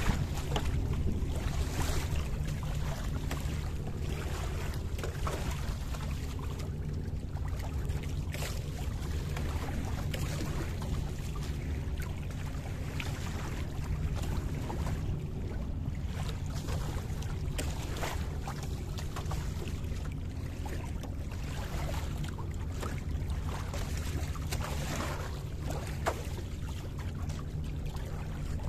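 Wind buffeting the microphone as a steady low rumble, with irregular splashes and washing of water along the hull of a small wooden sailing dinghy under way.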